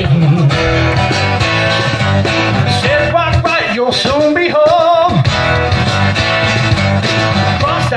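Live acoustic band playing: a strummed acoustic guitar over bass guitar and keyboard, with a man singing the melody.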